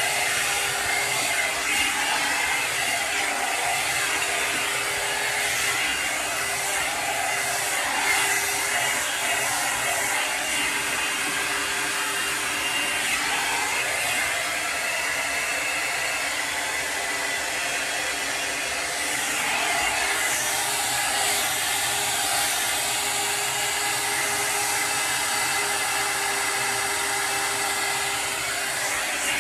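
A small motor running steadily with a rushing airflow noise and a steady hum.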